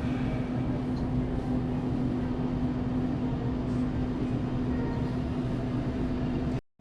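A vehicle engine running steadily, giving a constant low hum that neither rises nor falls.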